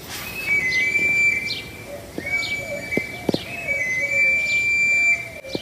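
Street knife sharpener's pan flute blowing three long, high whistled notes, with short falling chirps between them; the whistle announces the sharpener looking for knives to sharpen.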